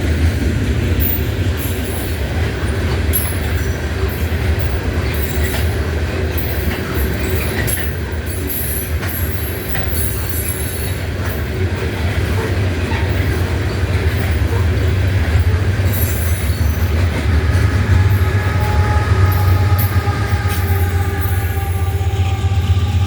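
Freight train cars rolling past with a steady, heavy low rumble and a stream of wheel clicks over the rail joints. Faint high squealing tones join in near the end.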